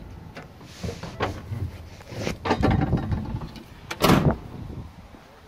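Knocks and clunks of a person climbing down out of a military truck cab, with one loud thump about four seconds in.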